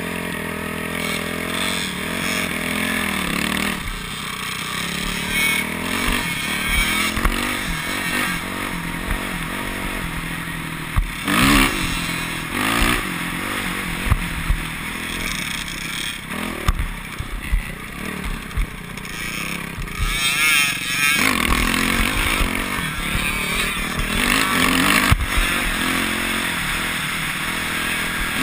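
Dirt bike engine, heard from the rider's helmet, revving up and dropping back again and again as it rides a dirt track, with a few sharp knocks along the way.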